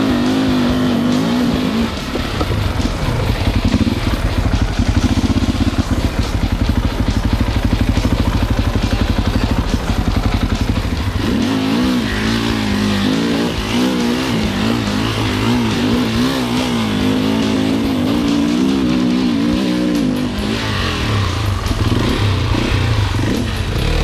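Enduro motorcycle engine revving up and down unevenly as it is ridden, its pitch wavering most busily in the second half.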